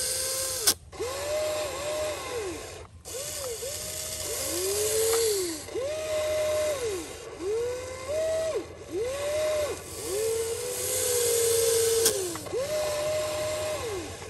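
Electric motors of a radio-controlled toy excavator whining as the boom, arm and bucket move, about a dozen separate runs, each rising in pitch as it starts, holding and dropping as it stops. A sharp click sounds about a second in.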